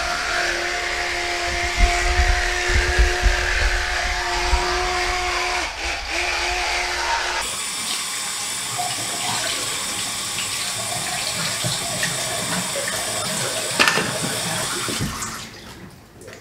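A steady hum with a low rumble, then from about halfway a bathroom sink faucet running water into the basin as hands are washed under it. The water sound falls away near the end.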